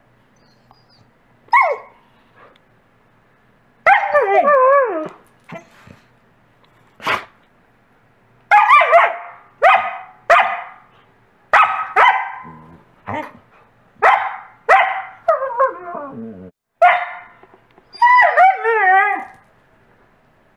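Wolfdogs barking again and again in short, sharp barks, with a long wavering whine-like call about four seconds in and again near the end. A Coastal wolf is barking to get a toy while a Wolamute gives a happy whining sound.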